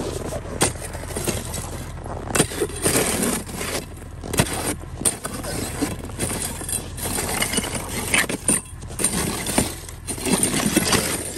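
Iron pry bar levering and knocking thick slabs of river ice in a cut channel of water: repeated sharp knocks, scrapes and clinks of ice against ice and against the bar, over a low steady hum.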